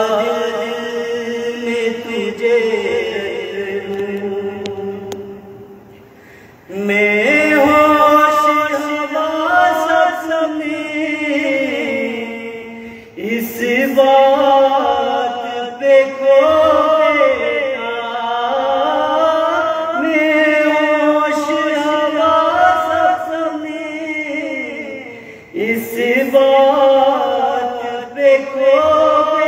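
A man reciting a naat, an Urdu devotional poem sung without instruments, in one solo voice. He sings long phrases of several seconds with drawn-out, ornamented held notes and pauses briefly between phrases, about 6, 13 and 25 seconds in.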